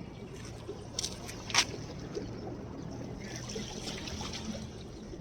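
Seawater lapping and trickling along the shore, with a brighter wash of water a few seconds in. A sharp click about a second and a half in is the loudest sound.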